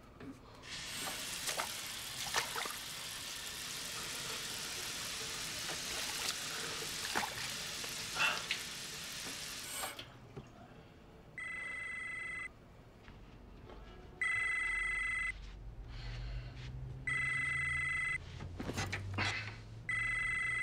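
Water running from a bathroom tap for about nine seconds, then cutting off suddenly. Then a bedside desk telephone rings four times, each electronic ring about a second long and about three seconds apart.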